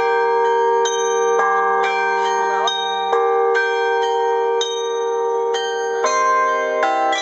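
A carillon's bronze bells playing a melody from the baton keyboard. Notes are struck about twice a second and each rings on under the next. About six seconds in, the music turns to lower, fuller chords.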